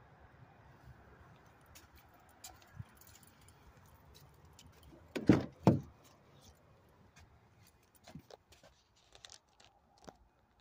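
Pickup truck's driver door unlatched and opened: two sharp clunks about half a second apart, a little over five seconds in, followed by faint scattered clicks and knocks.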